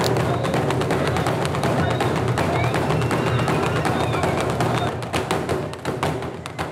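Traditional Zulu drumming: large hide drums beaten in a continuous rhythm of sharp, heavy beats.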